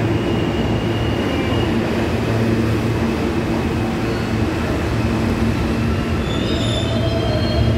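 New York City subway train of R160 cars running past the platform, a loud steady rumble of wheels and motors. Thin high wheel squeals come in during the last couple of seconds.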